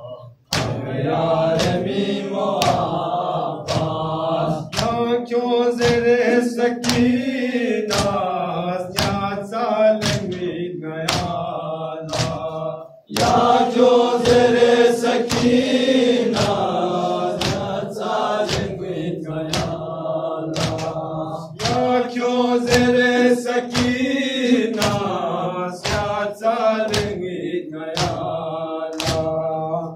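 Male voices chanting a Balti noha, a Shia lament, in unison into a microphone. Hands striking chests (matam) keep a steady beat under the chant. The chant breaks off briefly near the middle and comes back louder.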